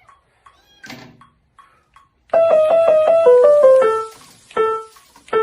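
Keyboard music: after about two seconds of near-quiet with a soft knock, a run of quick piano-like notes steps downward, then a few single notes follow.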